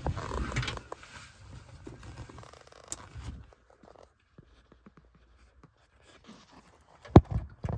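Rubbing and scraping of hands and camera being moved around wiring behind a car dashboard for about three seconds. It then goes near quiet, and a sharp knock comes near the end.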